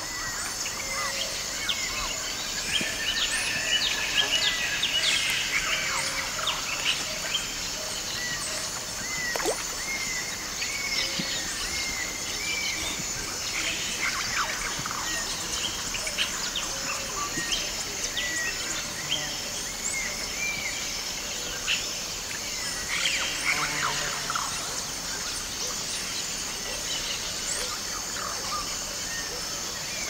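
Rainforest ambience busy with calls from many different birds: chirps, whistles and sweeps overlapping, with one short call repeated about once a second through the first half. Underneath runs a steady high insect drone.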